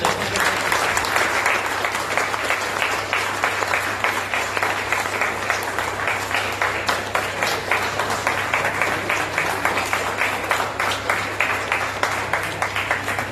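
A small group of people clapping their hands in applause, many quick overlapping claps at a steady level.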